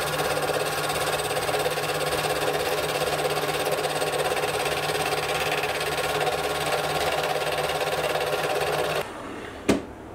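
Small metal lathe running while a carbide insert tool faces the end of a 1045 steel bar: a steady machine whir with cutting noise. About nine seconds in it drops suddenly to a much quieter hum, with a single sharp click.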